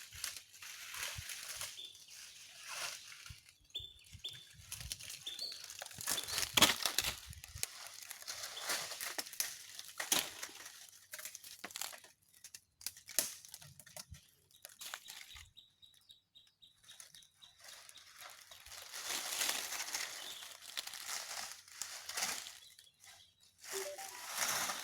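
Irregular rustling and crinkling with scattered clicks and snaps, the sound of things being handled or moved through close by; a few short high chirps come in the first few seconds.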